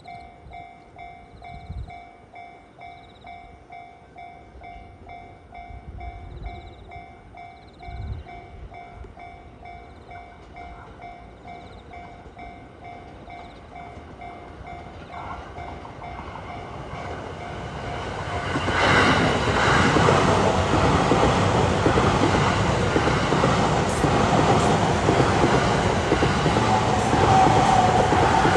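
Level-crossing warning bell dinging in a quick, even rhythm. A Rinkai Line 70-000 series electric train then approaches and is running past loud and steady from about 18 seconds in, drowning out the bell.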